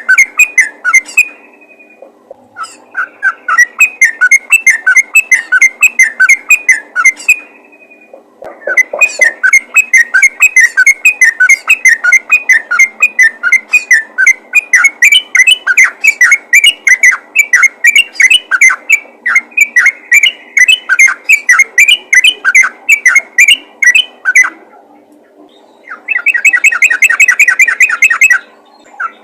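Yellow-vented bulbul (trucukan) singing a rapid, unbroken chatter of short whistled notes in long runs, with brief pauses between runs and a faster, denser run near the end.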